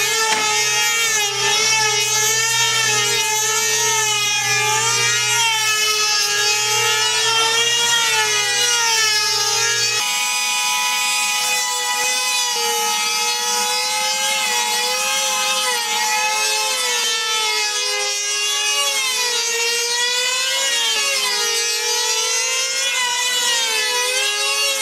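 Small two-stroke engines of two control-line combat model planes running at full speed with a high-pitched scream, the pitch wavering up and down about once a second or so as the planes circle the pilots.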